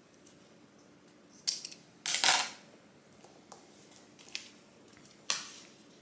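Scissors cutting through thick twisted rope: a few short crunching snips, the longest and loudest about two seconds in, with lighter handling clicks after it.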